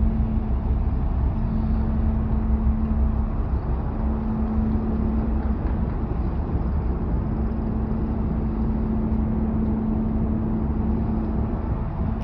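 Ferry Tokiwa Maru's engines running as the ship comes in to berth: a steady hum over a constant low rumble.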